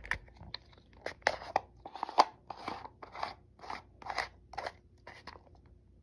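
Short crunching plastic scrapes, about two a second for some four seconds, as the front cover of a push-button spincast reel is twisted tight onto its threads.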